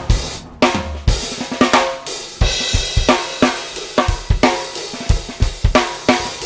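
Background music: a drum-kit beat with snare and cymbal hits, leading into a guitar track.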